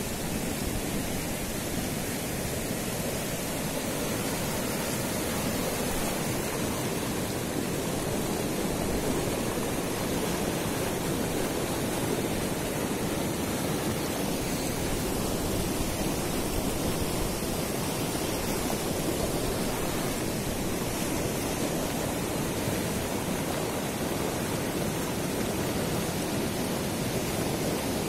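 Fast mountain river rushing over rocks in rapids: a steady, unbroken roar of white water.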